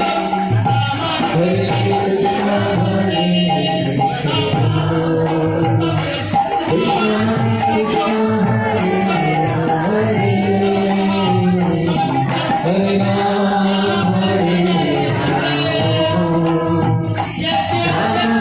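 Devotional chanting with music: a melody sung in short phrases that repeat every couple of seconds, over light steady percussion.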